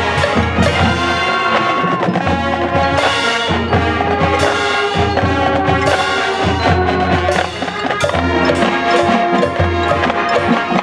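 A large marching band playing: brass over drums and mallet percussion, with sharp percussion strikes throughout.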